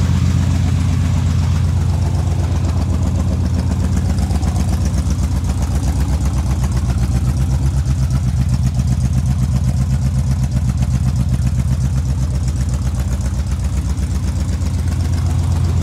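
1963 Chevrolet Impala SS's engine idling through its exhaust, a steady low exhaust note with even firing pulses, its idle speed just turned down after a throttle linkage adjustment.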